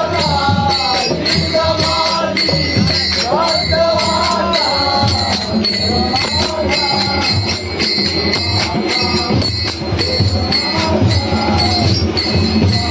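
Men singing together in a procession, with small brass hand cymbals (taal) clashed in a steady, quick rhythm.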